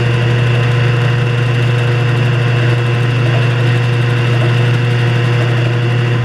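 Drill press motor running with a steady hum while a number 3 drill bit cuts a hole through a ring for a 1/4-28 tap.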